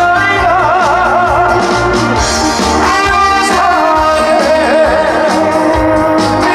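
Trot song performed live with a band: the lead vocal holds notes with wide, regular vibrato over the accompaniment.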